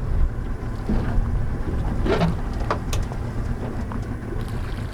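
Steady low wind noise on the microphone of an open boat on the water, with a couple of short knocks or splashes about two to three seconds in.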